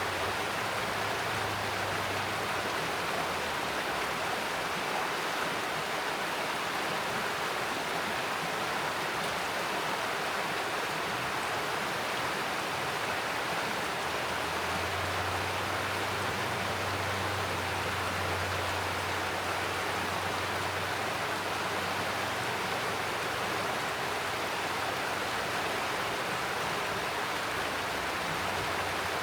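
Mountain stream rushing steadily over rocks, an even, unbroken water noise. A faint low hum comes and goes underneath, in the first few seconds and again for several seconds past the middle.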